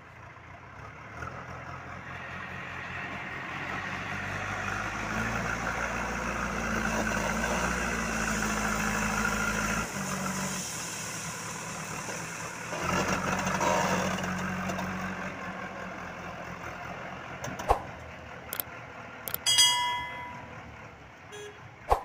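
JCB 3DX backhoe loader's diesel engine working under load as the front bucket pushes into and lifts a pile of crushed stone, with gravel scraping and pouring. The engine grows louder over the first ten seconds, drops suddenly, swells again a few seconds later and then eases off. A few clicks and a short high beep come near the end.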